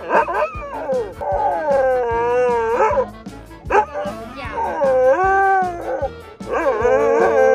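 Dog howling in three long, wavering notes whose pitch slides and cracks, over background music.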